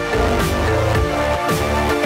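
Electronic background music with held chords, a deep bass line and a regular beat.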